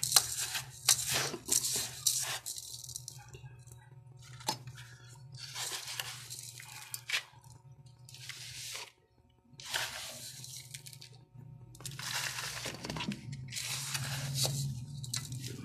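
Gritty cactus potting mix scooped and pushed around by hand and with a plastic scoop: repeated crunching, scraping rushes, each a second or two long with short pauses between, over a steady low hum.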